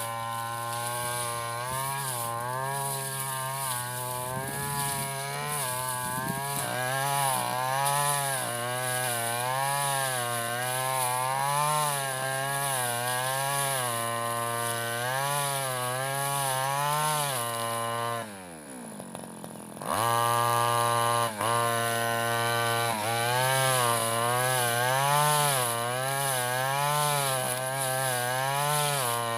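Stihl FR 3001 backpack brush cutter running at high revs through tall cogon grass, its engine pitch swinging up and down about once a second as the blade cuts. Nearly two-thirds of the way through, the revs fall away sharply for a second or two, then pick straight back up.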